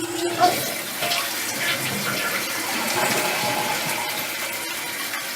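Toilet flushing, a sudden rush of water through the tank and bowl, set off by the Kohler touchless flush sensor.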